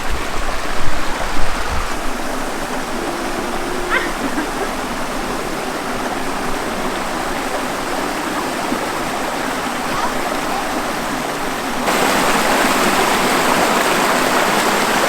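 Steady rushing of a mountain stream and waterfall pouring over rock, which grows louder about twelve seconds in. A couple of low thumps come about a second in.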